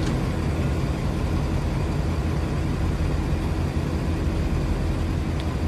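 Standing steam locomotive 56548 giving off a steady low hum and whir, the even running noise of an engine kept in steam at rest.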